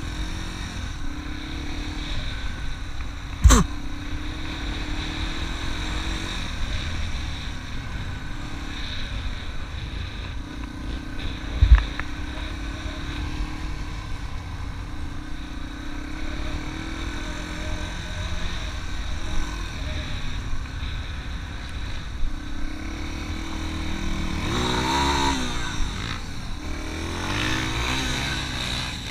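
Dirt bike engine running and revving up and down as it rides over sand, with low wind rumble on the microphone. Two sharp knocks, a few seconds in and about twelve seconds in.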